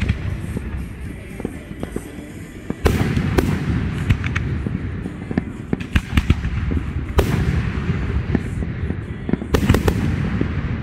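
Fireworks going off in a series of sharp bangs and crackles over a low rumble. It gets denser and louder about three seconds in, with the biggest bursts near the end.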